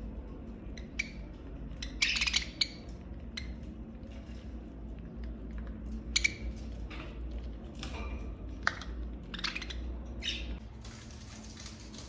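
Budgerigars chirping in short, scattered bursts, mixed with small sharp clicks from beaks pecking at soft food in a plastic scoop.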